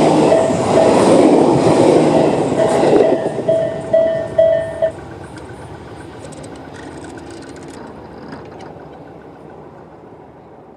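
Tobu 6050 series train running past a level crossing while the crossing's electronic warning bell, of the Tobu 'sound A' type, rings in quick repeated pulses. The bell stops about five seconds in, and the train's wheel clicks over the rail joints go on for a few more seconds and fade away.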